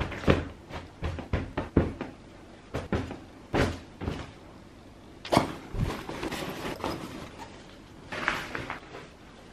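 Clothes and a fabric duffel bag being handled during packing: a string of irregular soft knocks and thumps, with a rustle of fabric near the end.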